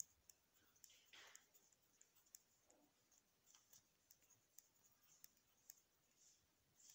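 Faint scratching of a pencil writing on paper, with small irregular clicks between the strokes.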